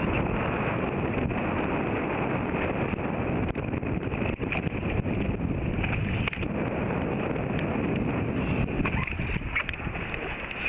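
Wind buffeting the microphone over choppy water, with water sloshing against an inflatable boat, with a few light knocks near the end.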